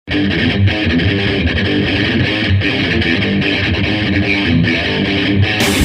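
Music led by guitar with bass, starting abruptly and keeping a steady beat. Just before the end, the sound brightens and fills out as a fuller section comes in.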